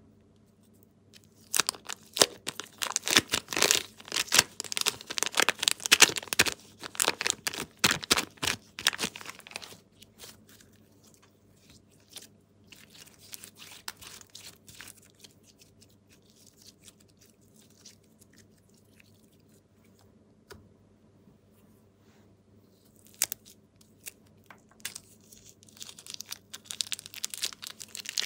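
Clear plastic bag crackling as hands squeeze slime out of it, in dense runs of crackles over several seconds. A quieter stretch follows, then the crackling picks up again near the end.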